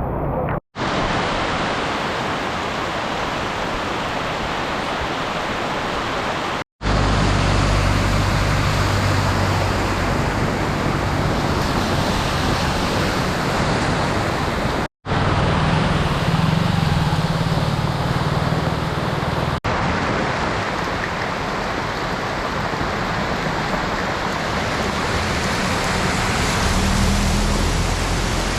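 Heavy rain pouring down in a dense, steady hiss, with a low vehicle engine hum coming through in places. The sound drops out briefly three times where the footage cuts.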